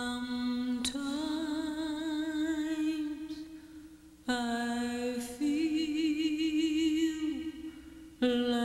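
A solo voice singing wordless, unaccompanied long held notes with vibrato. A new phrase starts about a second in, another about four seconds in, and a third near the end, the middle one stepping up in pitch and sliding down as it fades.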